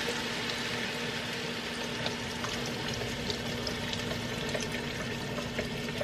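Chicken stock pouring from a carton into a soup pot in a steady stream, with small splashes and clicks from about two seconds in.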